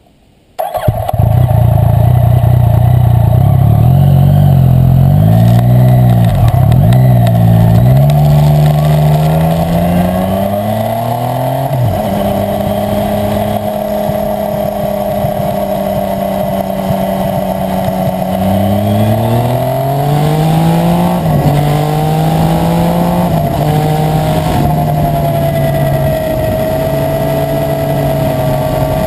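Yamaha Tracer 900's 847 cc inline-three engine with an Akrapovic exhaust, starting loud a moment in and blipped up and down. It then pulls through the gears in rising sweeps, drops in pitch at each upshift, and holds a steady note between pulls.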